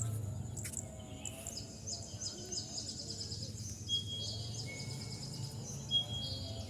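Evening rice-field wildlife: runs of rapid, high chirps with a few short held whistling notes, over a steady low drone.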